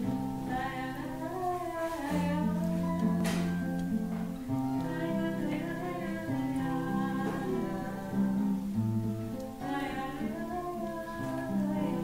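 Acoustic guitars (violão) played together in an informal folk song, with voices singing along.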